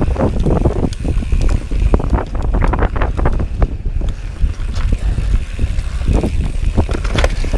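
Mountain bike descending dirt singletrack at speed: wind buffeting the camera microphone as a constant low rumble, with the tyres and frame rattling and knocking over roots and bumps many times a second.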